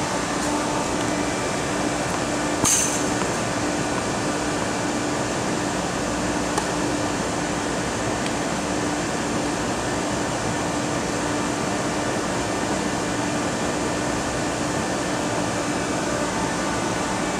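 Steady outdoor background noise with a constant low hum. One sharp clink comes about three seconds in, with a couple of faint ticks elsewhere.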